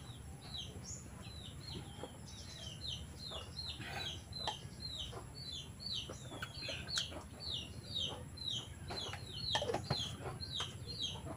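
Birds peeping steadily: a short, falling, high call repeated about three times a second. A few light clicks and knocks sound in between.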